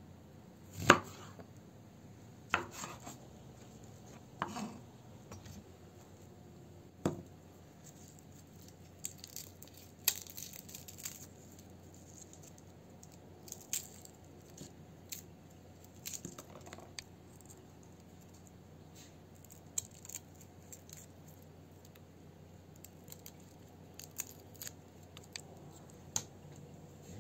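A kitchen knife cuts onion on a wooden cutting board, its blade knocking sharply on the board several times in the first seven seconds. After that come lighter, scattered clicks and papery crackles as garlic cloves are split and peeled.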